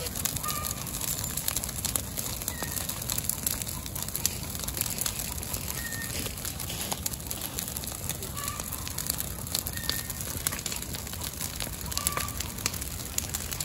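Wood fire crackling, with chickens giving short single calls every couple of seconds.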